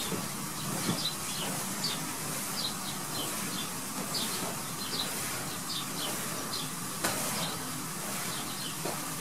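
Steady low hum of the bouncy castle's electric blower, with short high bird chirps repeating throughout. A few soft thumps come from someone jumping on the inflatable, the sharpest about seven seconds in.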